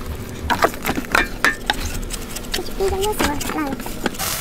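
Knife blade scraping over raw pig skin in short, repeated strokes, cleaning a pig's head. A voice talks over it near the middle.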